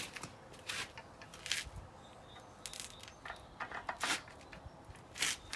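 A few short scuffs and scrapes: footsteps on paving stones and the wooden bench frame being handled during assembly.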